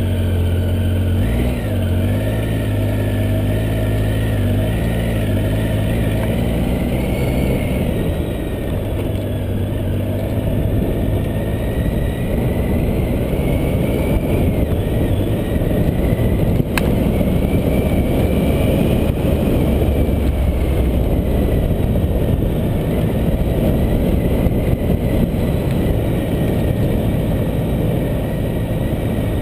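Motorcycle engine running steadily as the bike rides along a sandy track, mixed with dense wind rumble; one sharp click a little past the middle.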